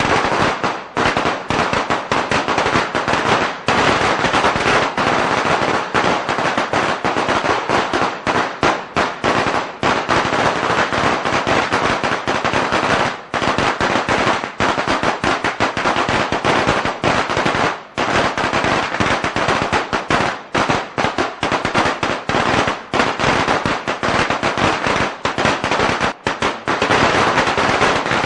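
A long string of firecrackers going off in a dense, continuous rapid crackle of sharp bangs, with only brief dips.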